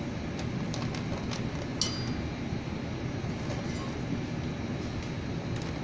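Steady low rumbling background noise with a few light metallic clicks on top; one clink a little under two seconds in rings briefly.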